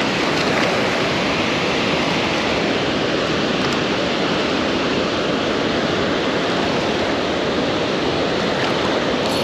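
Water rushing steadily through a dam spillway in heavy current, a constant even wash of noise.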